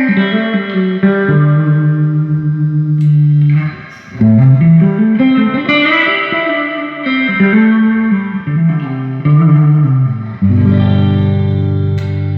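Electric guitar played through a 1975 Fender Twin Reverb Silverface master-volume tube amp with reverb. Long held notes give way to a sliding, bending phrase in the middle, and a chord is struck and left ringing near the end.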